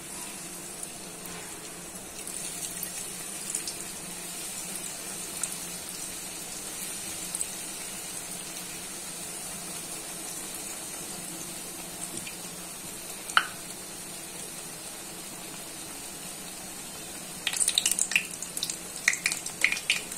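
Bread slices deep-frying in hot refined oil, a steady sizzle. There is a single sharp click about two-thirds of the way through. Near the end a slotted metal spoon clinks and scrapes against the metal pan as the pieces are moved.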